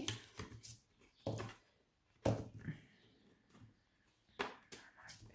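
Plastic Q-Snap cross-stitch frame pieces being handled and pushed together during assembly: a series of light, irregular knocks and clicks.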